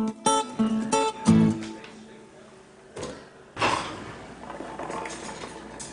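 Acoustic guitar background music, strummed and plucked, ending about a second and a half in. Then a single click, and a short burst of noise about three and a half seconds in, followed by faint room sounds.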